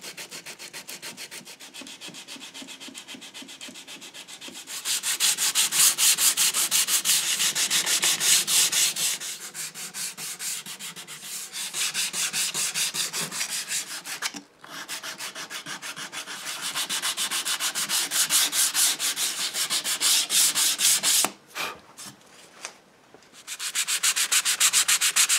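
Sandpaper hand-sanding the wooden clock case and its moldings, partly on contour sanding blocks: quick back-and-forth scratching strokes, several a second. Quieter for the first few seconds, then louder, with short breaks about halfway through and again near the end.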